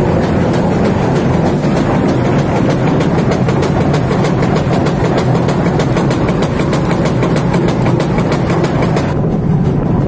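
Working windmill's grain-milling machinery running: a steady rumble with a rapid, even clatter. Near the end the clatter drops away, leaving the rumble.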